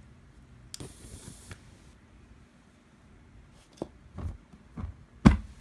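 USB-rechargeable electric arc lighter firing, its arc giving a brief high hiss about a second in that lasts under a second. Several sharp clicks and thumps follow in the second half, the loudest near the end.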